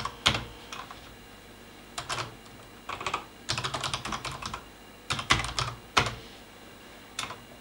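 Typing on a computer keyboard: short groups of key clicks with pauses between them, and a fast run of keystrokes about halfway through.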